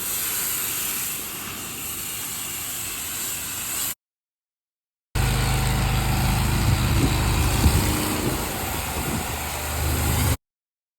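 Pressure-washing sounds in two abruptly cut pieces: first a steady high hiss of water spray for about four seconds, then, after a second of dead silence, a pressure washer's engine and pump running steadily with a low hum, louder than the spray.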